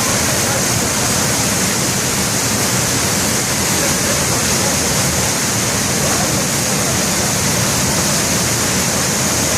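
Waterfall on a river: a steady, loud rush of falling water.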